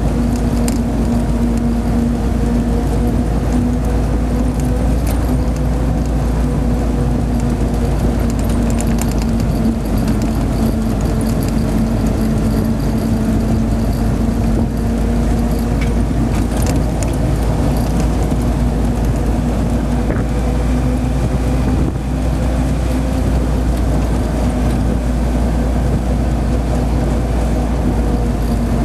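Hotchkiss M201 jeep's side-valve four-cylinder engine running at a steady cruise under way, heard from the driver's seat: an even drone with a low rumble, and a few light rattles.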